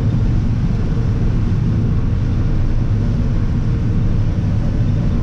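Combine harvester running steadily while harvesting and shelling corn: a constant low drone of the engine and threshing machinery with a steady hum.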